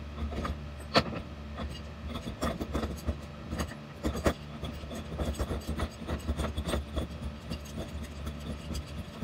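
Metal clinks and knocks of a large wrench and the furler's stainless end fitting being handled, with rubbing and scraping as the fitting is worked by hand; the sharpest knocks come about a second in and again around four seconds in. A steady low hum runs underneath.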